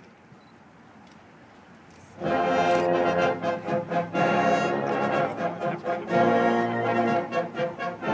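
High school marching band: after about two seconds of quiet, the brass enters together on a loud sustained chord and the full band plays on, with drum hits among the held brass notes.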